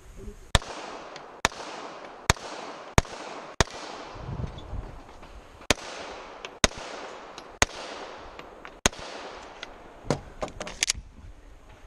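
Pistol gunshots from a Glock. There are five shots about two-thirds of a second apart, a short pause, then four more shots spaced about a second apart. A few quieter cracks follow near the end.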